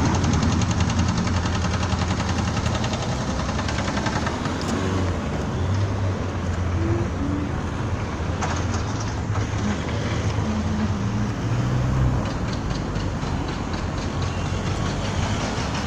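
Road traffic passing close by: car engines running and tyre noise on the road. A low engine drone drops away about twelve seconds in.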